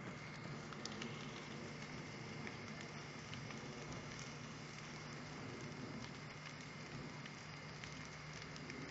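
Steady hiss and patter of a fire hose's water jet spraying onto a burning portable cabin, with small crackles from the fire and a steady low hum underneath.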